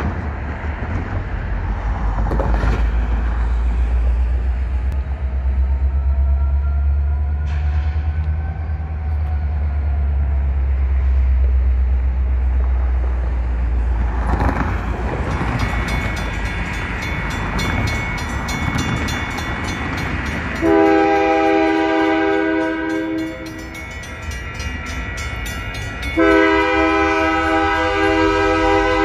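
Grade-crossing warning bells ringing steadily from about halfway, then a diesel locomotive's multi-chime air horn sounds a long blast, pauses, and starts a second blast near the end. A low rumble underlies the first half.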